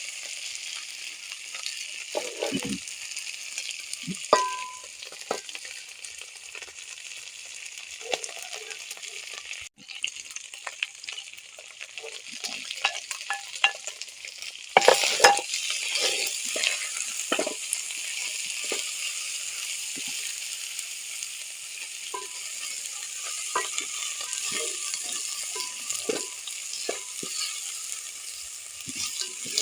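Food sizzling as it fries in a pan: a steady hiss, with irregular clicks and scrapes of a utensil stirring against the pan. The sizzling flares up louder about halfway through.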